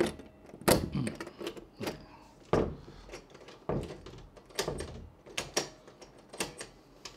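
Metal clicks and clunks from a stainless steel door knob being pushed back onto its spindle and turned, its latch mechanism snapping, about once a second.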